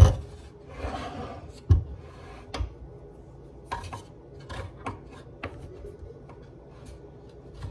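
An electric griddle being handled on a countertop. It is set down with a loud knock, then rubbed across its surface, with a sharp knock about two seconds in. Scattered light taps and clicks follow as it is moved and handled.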